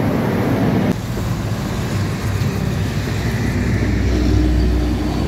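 Diesel bus traffic passing close. A Scania K410IB coach's engine and tyres rumble, then cut off abruptly about a second in. A city bus's diesel engine follows, rumbling louder as it approaches, with a steady hum in the second half.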